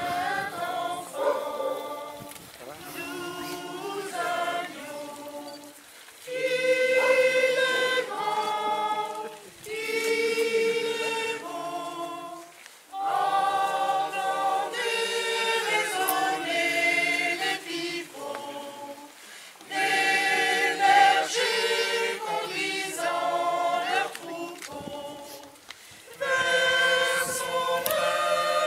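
Choir singing, phrase after phrase, with short breaks for breath about every six seconds.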